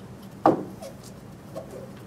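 A sudden loud knock about half a second in, with a fainter one about a second later, from the plexiglass sheets being handled and knocked during taping.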